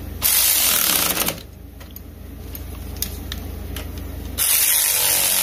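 Cordless electric ratchet running in two bursts, about a second and then nearly two seconds, driving half-inch bolts tight.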